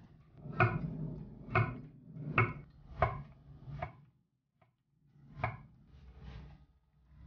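Kitchen knife slicing through shiitake mushrooms onto an end-grain wooden cutting board: about five strokes roughly a second apart, each ending in a crisp knock on the board, then one more after a short pause.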